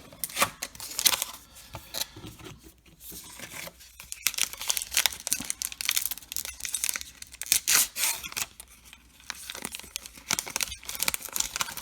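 A baseball card pack's wrapper being torn open and crinkled, with a rapid run of sharp crackles and rustles throughout as the pack is handled.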